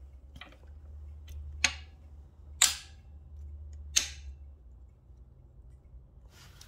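Strong neodymium block magnet snapping onto a Brompton folding bike's steel frame: three sharp metallic clicks about a second apart, the middle one loudest, as it clacks on and is shifted into place.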